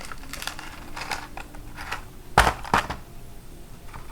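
Small clicks and taps of electronic parts and wires being handled on a plastic breadboard, with two sharp knocks close together about two and a half seconds in.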